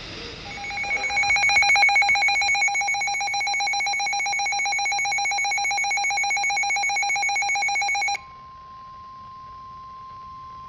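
Weather radio receiver's alert alarm: a loud, rapidly pulsing high tone for about eight seconds, which cuts off suddenly into the quieter steady single-pitch tone of the NOAA Weather Radio warning alarm, signalling that a new warning is about to be broadcast.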